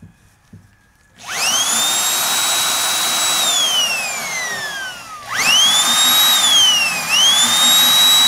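Corded electric drill boring upward into the bus frame for receiver-hitch bracket holes. Its motor whine rises steeply about a second in and holds, then falls slowly in pitch, and spins up again about five seconds in with a brief dip near the end.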